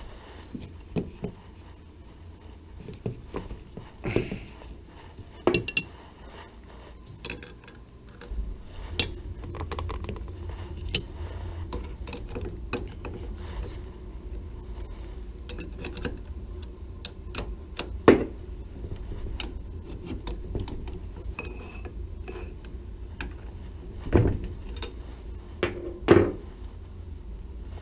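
Metal lathe parts and hand tools clinking and knocking against the cast-iron bed of a WEN 3421 wood lathe as they are handled during assembly: irregular clicks and clanks, with a louder knock about 18 seconds in and two more near the end.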